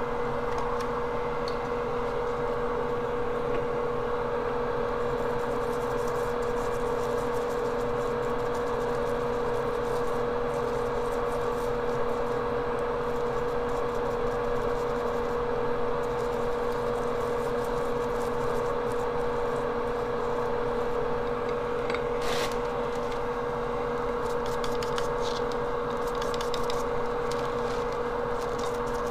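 Steady hum of a small electric fan, with a constant mid-pitched whine, and one faint click about three quarters of the way through.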